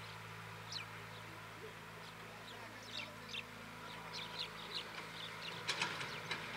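Diesel engines of a CAT mini excavator and a tractor running steadily with a low hum. Over it, birds chirp in short, high, falling notes, with a louder quick run of sharp chirps about six seconds in.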